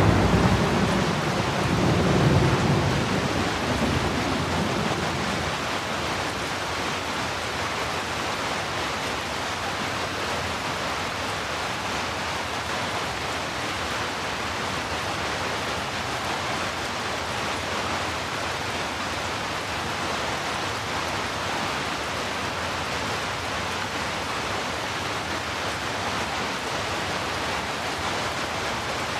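Steady heavy rain, an even hiss throughout, with a loud low rumble of thunder dying away over the first few seconds.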